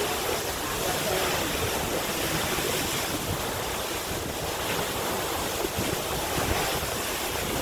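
Steady rushing of a large waterfall, Stirling Falls, heard close up, with wind buffeting the microphone in gusts.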